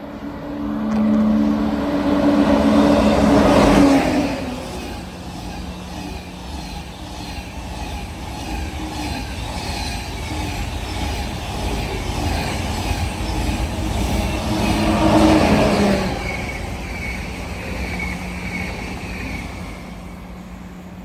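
A train passing on the tracks: a loud hum and rush in the first few seconds, a regular rhythmic wheel clatter through the middle, and a second loud swell about fifteen seconds in before it fades.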